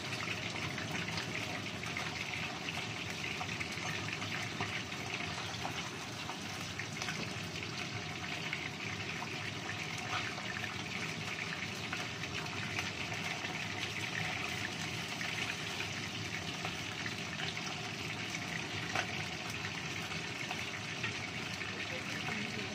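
Whole tilapia frying in hot oil in a non-stick wok: a steady sizzle with fine crackling throughout.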